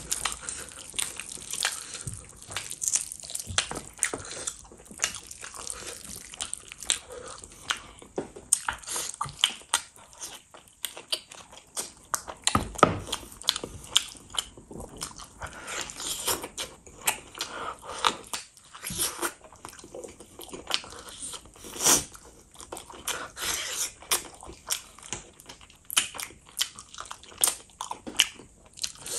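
Eating mutton and gravy-soaked rice by hand: wet chewing and lip smacks in irregular, sharp little clicks, with squelching as fingers pull the meat apart.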